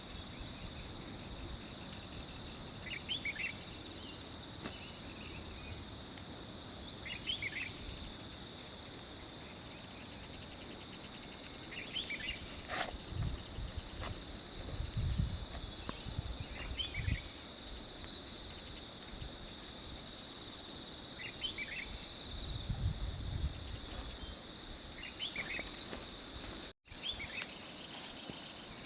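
Insects drone steadily at two high pitches, and a short call repeats about every four to five seconds. A few low bumps come in the middle.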